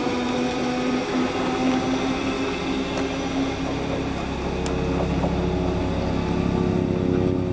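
Class 313 electric multiple unit running towards the camera, giving a steady mechanical drone with several held tones. About halfway through a deeper hum with a fine throb sets in.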